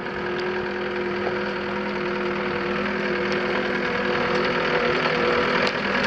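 John Deere 332G skid steer's Yanmar four-cylinder diesel engine running at a steady speed, growing gradually louder, with a few faint clicks.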